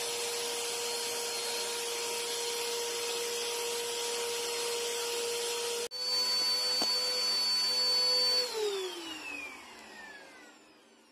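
Bissell PowerLifter bagged vacuum cleaner running with a steady motor whine while drawing through its hose. The sound cuts out for a moment about six seconds in and comes back slightly louder and higher. About eight and a half seconds in the vacuum is switched off, and the whine falls in pitch as the motor winds down.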